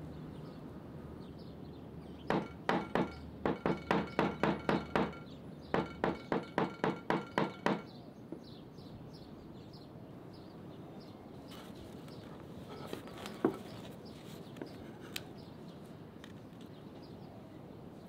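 A quick, even run of sharp knocks, about three strikes a second, in two bursts with a short pause between; each strike rings briefly. A few fainter clicks and one more knock follow later.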